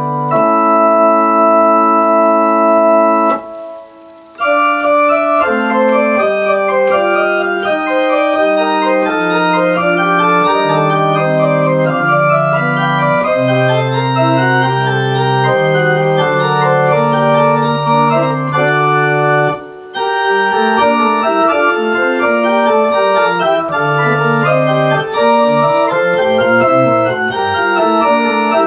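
Two-manual digital organ playing: a held chord, a short break about three and a half seconds in, then moving lines over long held bass notes, with another brief pause about two-thirds of the way through.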